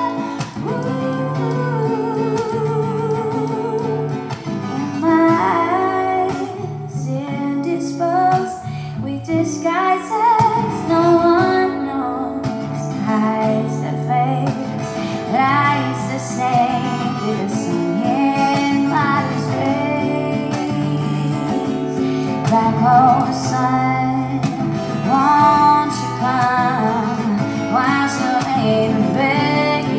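Live song with a singer and acoustic guitar: a sung melody with held, wavering notes over steady guitar chords.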